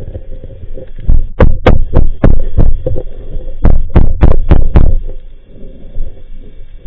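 A run of sharp underwater knocks, about three a second, in two runs of five or six with a short pause between. A faint steady hum sits underneath.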